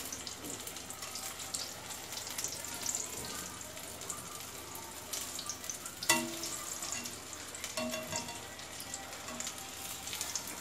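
Potato-and-vegetable balls deep-frying in oil in a kadai, with a steady sizzle. A wire skimmer turning them clinks sharply against the pan about six seconds in, and more faintly near eight seconds.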